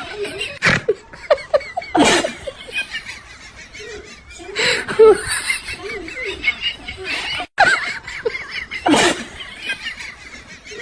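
Laughter, broken by several sudden loud bursts, with a brief cut to silence about seven and a half seconds in.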